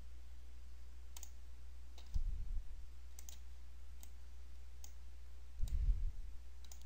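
Computer mouse clicks, about half a dozen faint separate clicks spread over several seconds, over a low steady hum, with two soft low thumps about two seconds in and near the end.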